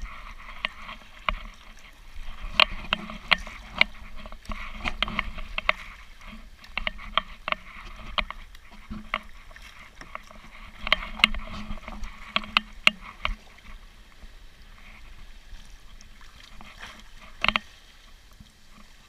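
Kayak paddling on the sea: paddle blades dipping and splashing, water sloshing against the plastic sit-on-top kayak, with frequent sharp ticks and splashes, the loudest one near the end.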